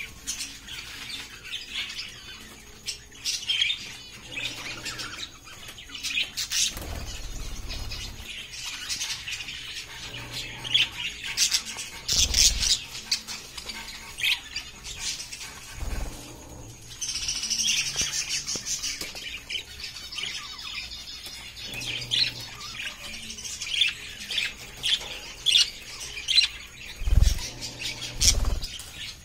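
A flock of caged budgerigars chirping and chattering, many short high calls overlapping continuously. A few low thumps come in among them.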